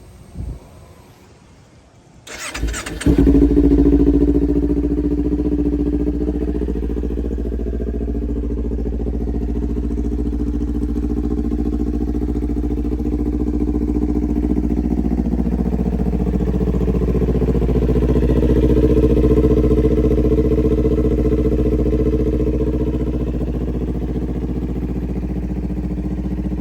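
A Kawasaki Ninja 400's parallel-twin engine is started through its aftermarket exhaust. It cranks briefly about two seconds in and catches with a loud flare. It then settles into a steady idle, with the exhaust now fitted properly so that it no longer rattles.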